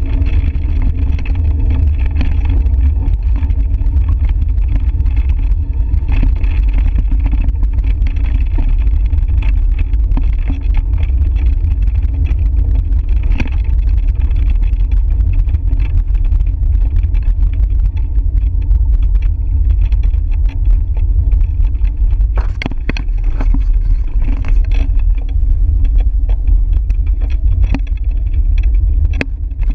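Steady wind buffeting the microphone of a camera on a moving bicycle, heavy and low, with a few sharp knocks about three-quarters of the way in.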